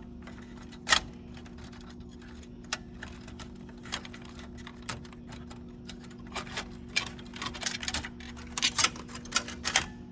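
Cables and a hard-drive bracket being worked back into a Canon copier by hand: one sharp click about a second in, then a quick run of small clicks and rattles over the last few seconds, over a steady low hum.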